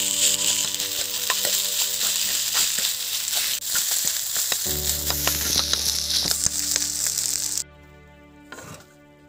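Rice sizzling as it fries in a hot wok, stirred and scraped with a metal spoon with many small clicks. The sizzling cuts off suddenly near the end.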